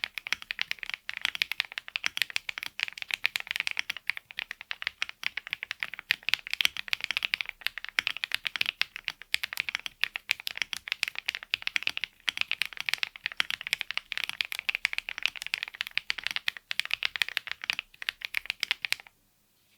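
Mechanical keyboard fitted with BSUN Jade Rosales factory-lubed linear switches being typed on rapidly, a dense stream of keystroke clacks. The typing stops abruptly near the end.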